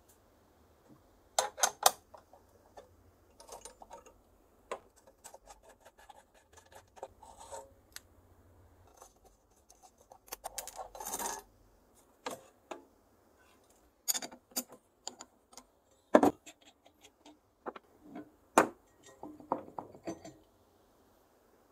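Clicks, clinks and knocks of metal parts and an abrasive grinding wheel being handled as a bench grinder is taken apart. About ten seconds in there is a second-long scraping rattle as a screwdriver turns the screws out of the wheel guard. Sharp knocks come every few seconds.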